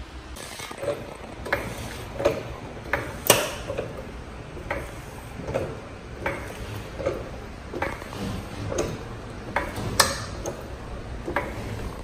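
Hydraulic floor jack being pumped by its handle to raise a car: a regular click and clunk with each stroke, about every three-quarters of a second.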